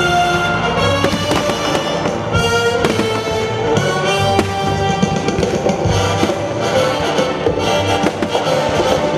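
Fireworks bursting and crackling in irregular sharp bangs, with music playing steadily underneath.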